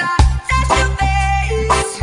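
Music soundtrack with a deep, sustained bass line and a gliding melody line above it.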